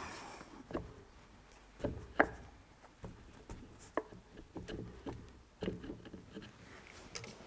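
Scattered clicks and knocks of a metal part being handled and worked apart by hand, about seven separate taps with the sharpest a little past two seconds in.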